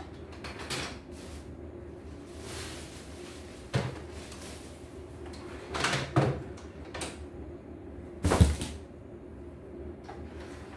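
Handling noises on a wooden workbench: a few knocks and clatters as objects are picked up and set down, a cluster about six seconds in and the loudest one near the end, with a brief rustle about two seconds in.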